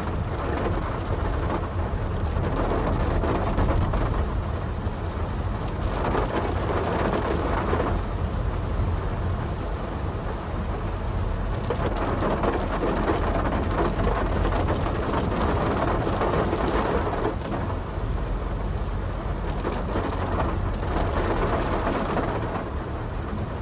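Rain falling on a Honda Brio hatchback's roof and windscreen, heard from inside the car, over a steady low rumble of engine and road.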